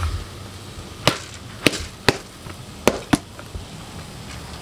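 Wood fire crackling under a steamer pot: five sharp pops at irregular gaps, over a low steady background.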